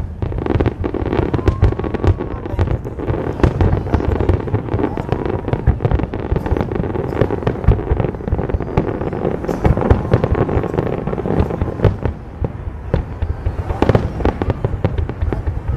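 Fireworks display: a continuous rapid barrage of bangs and crackles from many shells bursting, with no break.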